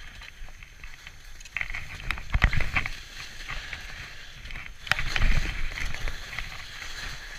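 Skis hissing through soft snow, the swish swelling and fading with each turn, with two heavier scraping thuds about two and a half and five seconds in.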